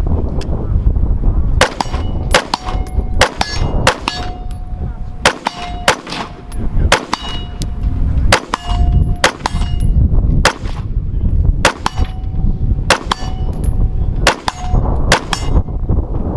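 A long, fast string of rifle shots, starting a couple of seconds in, with many shots followed by a short metallic ring as steel targets downrange are hit.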